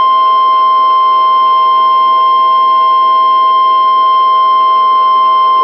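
Emergency alert attention tone from a weather-radio/EAS broadcast: a loud, steady single-pitched tone that cuts off abruptly at the end. It signals that an emergency message, here a wildfire evacuation order, is about to be read.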